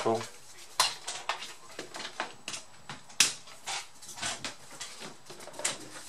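Irregular clicks and light knocks as a laptop power adapter and its cable are handled and plugged in on a workbench, the loudest about one and three seconds in.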